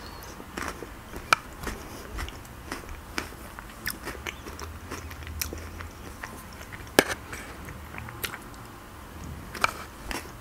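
A person chewing a mouthful of chicken soup, with scattered sharp clicks, the loudest about seven seconds in.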